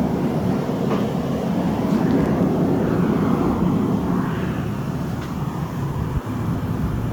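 Blower-fed gas burner firing into a homemade melting furnace: the fan and burning gas make a steady, loud, low rushing noise.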